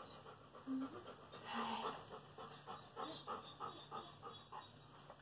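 Golden retriever panting in a steady rhythm, about three pants a second, while she settles down after play.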